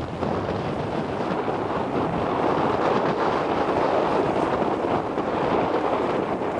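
Steady wind noise buffeting the microphone, mixed with rushing water, over choppy open sea.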